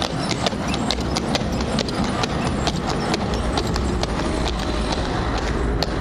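Shod hooves of a heavy draught horse clip-clopping at a walk on the road as it hauls a double-decker horse tram, several strikes a second. A low rumble sits beneath and grows louder about three seconds in.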